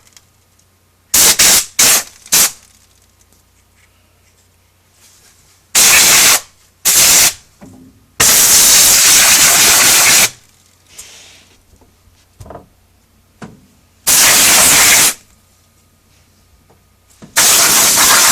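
Can of compressed-air duster sprayed through its straw to blow dust out of a TV's fan and lamp housing: loud hissing blasts, first four quick puffs, then longer blasts of one to two seconds, the longest just past the middle. The blasts are cold enough to frost the parts they hit.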